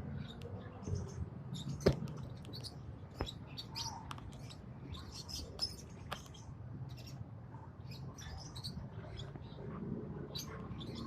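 Lovebirds chattering, with many short, high-pitched chirps and squeaks overlapping throughout, and a few sharp clicks.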